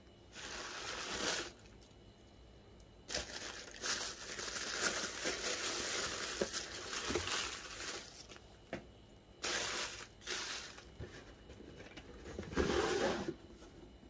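Tissue wrapping paper crinkling and rustling as hands pull it out of a shoebox, in bursts: a brief one at the start, a long spell of crumpling lasting several seconds, then a few shorter bursts toward the end.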